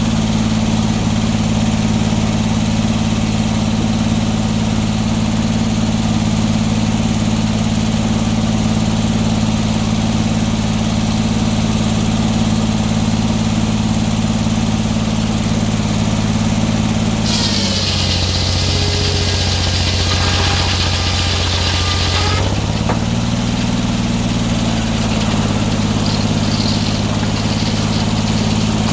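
Sawmill engine running steadily. About two-thirds of the way through, its pitch drops under load for about five seconds while a loud high hiss joins in, then it settles back to its steady run.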